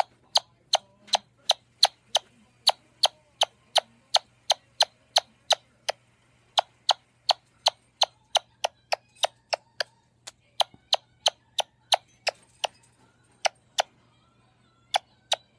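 A quick, steady run of sharp kissing smacks, about three a second, broken by a short gap about ten seconds in and a longer pause near the end.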